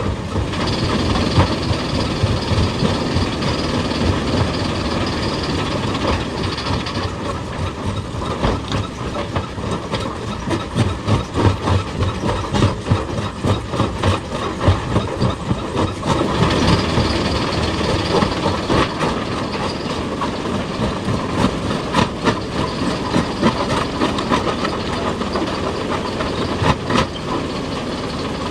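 Hydraulic excavator working on rock: a heavy diesel engine runs steadily under irregular knocks and clanks of steel and stone. A high whine sounds through the first seven seconds or so and returns about sixteen seconds in.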